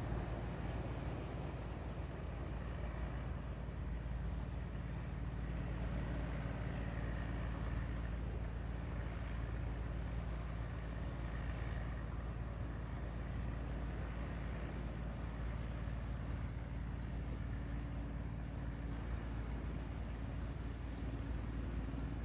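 Steady wind buffeting the microphone, a low rumble, with a faint steady low hum underneath and faint short high chirps scattered throughout.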